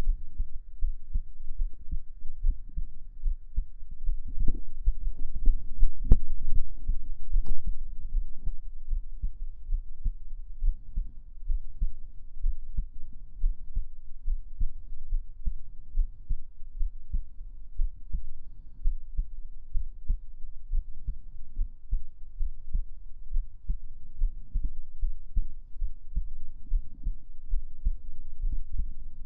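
Human heartbeat, a steady low thumping, with two brief faint clicks about six and seven and a half seconds in.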